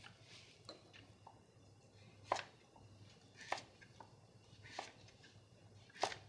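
Chef's knife cutting through a raw carrot onto a cutting board, squaring off its sides: about five separate cuts, roughly one a second, each a short sharp knock.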